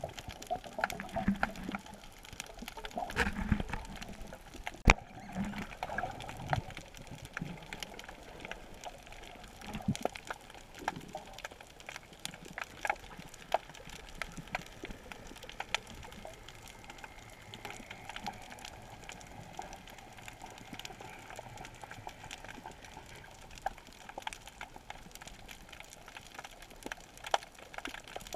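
Underwater ambience heard through a submerged camera: faint crackling with many scattered small clicks. A few muffled low bubbling sounds come in the first several seconds.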